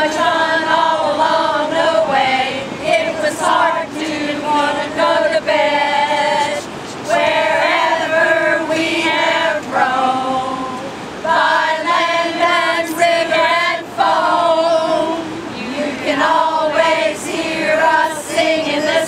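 A group of women singing together unaccompanied, in sung phrases with held notes and short breaks between lines.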